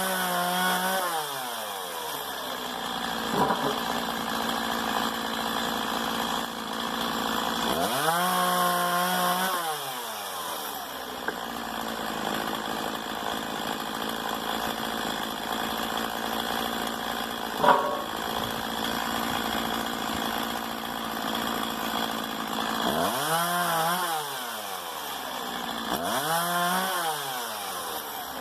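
Stihl MS 170 two-stroke chainsaw running, its engine revved up and falling back four times, running steadily in between, with a brief knock about two-thirds of the way through.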